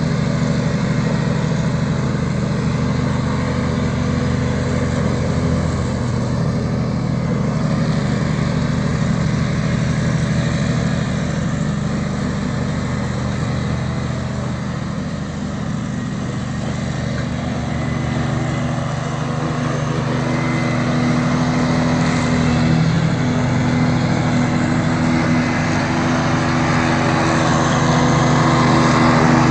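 Stiga Park ride-on mower's engine running steadily while mowing grass, growing a little quieter around the middle as it drives away and louder near the end as it comes close.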